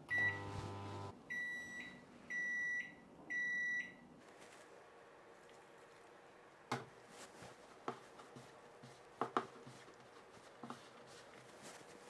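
Microwave oven running with a short hum, then three long, even beeps about a second apart as its cycle ends. After that, faint clicks and soft handling noise as warm wine is poured onto crumbly dough and mixed in by hand.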